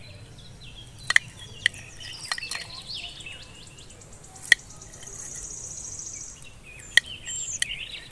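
Rainwater dripping in sharp, separate drops, about six of them, over birds chirping. A high, even trill runs for about a second and a half in the middle.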